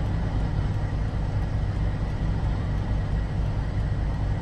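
Steady low vehicle rumble heard from inside a car stopped at the roadside with its window open.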